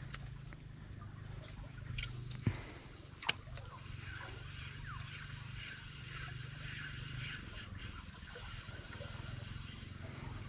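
Steady, high-pitched insect drone, with a few sharp clicks and knocks about two to three seconds in.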